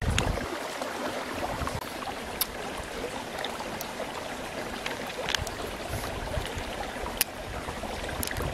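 Steady outdoor rushing background noise, with a few faint sharp clicks scattered through it.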